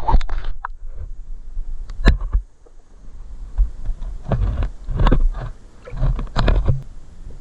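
Muffled underwater noise from water moving against a submerged camera: irregular bursts of low rumbling with sharp clicks and knocks, the sharpest about two seconds in.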